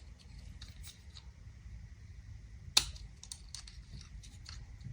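Small plastic clicks and taps from handling ignition coil connector parts and clips, with one sharp click a little past the middle.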